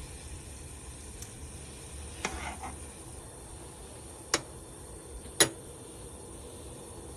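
Kitchen utensils and dishes clinking while ginger tea is prepared: a light clatter about two seconds in, then two sharp clicks a second apart near the middle, over a low steady hum.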